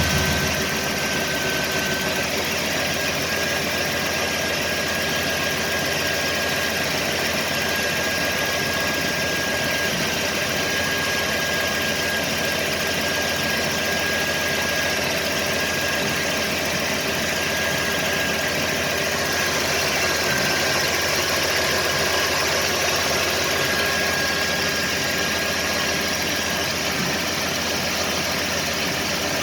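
Small-block Chevy V8 idling steadily, with the thumping and popping noises that the owner is trying to track down. A thin steady whine sits above the engine note.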